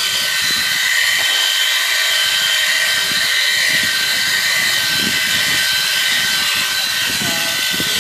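Corded electric sheep shears running steadily with a high whine while cutting through a black sheep's fleece.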